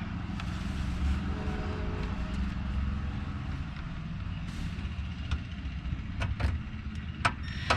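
A few sharp clicks and knocks of plastic dash trim being handled and fitted, over a steady low rumble.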